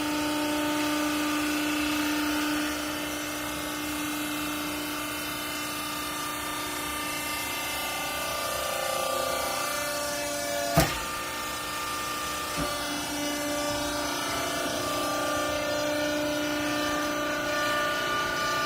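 Hydraulic baling press running, its motor and pump giving a steady hum with several whining tones that shift in pitch partway through. A single sharp metal clank about eleven seconds in, and a fainter knock shortly after.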